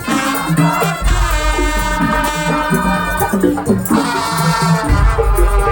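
Live percussion-band music: a held melody over a steady beat of drums and rattles with a deep bass underneath.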